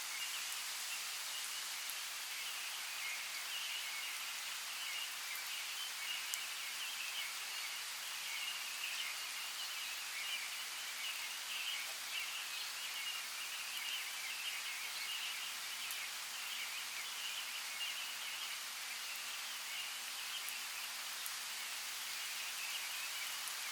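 Light rain falling on forest leaves, a steady hiss with scattered small drips. Over it runs a continuous high, busy twittering of birds.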